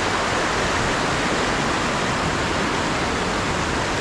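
Sea water washing and churning over shoreline rocks: a steady rushing hiss.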